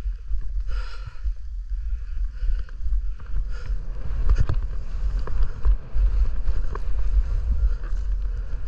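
Snowboard riding through powder: wind buffeting the microphone in a steady low rumble, with the board scraping and hissing over the snow and a few sharp knocks about halfway through.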